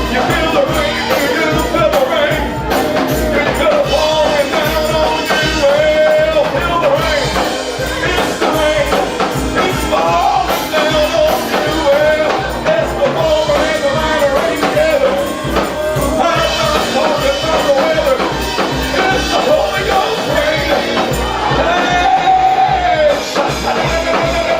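Live church praise music: a voice singing a melody over a band with a steady beat.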